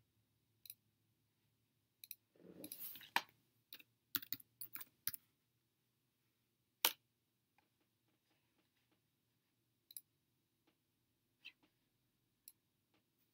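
Faint computer keyboard keystrokes and mouse clicks. They come in a cluster between about two and five seconds in, with a single sharp click near seven seconds and a few scattered clicks after that.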